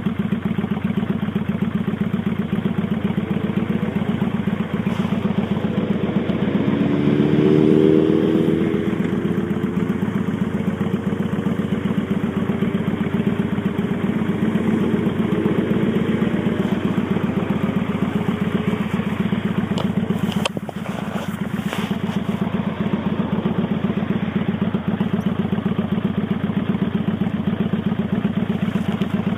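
Kawasaki Vulcan 800 V-twin running at riding speed through Vance & Hines Straight Shots exhaust pipes with the baffle plug removed. The low beat holds steady, with a short louder surge about eight seconds in and a few sharp clicks around twenty seconds in.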